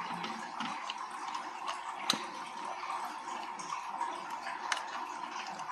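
Handling of a small plastic alarm sensor and its replacement lithium battery while the battery is being fitted: two sharp clicks, a louder one about two seconds in and a smaller one near the end, over a steady background hiss with a faint steady tone.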